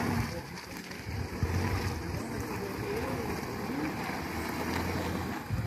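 Toyota pickup truck's engine running as it turns across a muddy dirt road, its low hum coming and going, with wind rumbling on the microphone.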